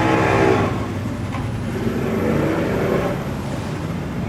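Boat engine revving: its pitch climbs and fades about half a second in, then engine noise carries on more steadily.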